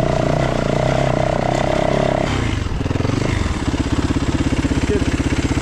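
Yamaha WR450F's single-cylinder four-stroke engine running as the bike rides along, then dropping in pitch about two seconds in and settling to an even pulsing at low revs.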